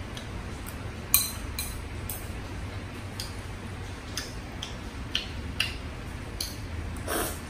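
Chopsticks tapping and scraping against a small ceramic bowl while eating, in about nine irregular clicks, the loudest just over a second in. Near the end comes a brief slurp of food, and a low steady hum runs underneath.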